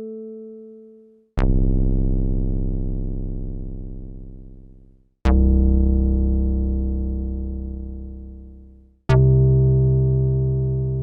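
Yamaha TX81Z FM synthesizer bass tones: three separate notes, each with a sharp attack and then a slow fade over about four seconds. At the start, the tail of an earlier note is dying away.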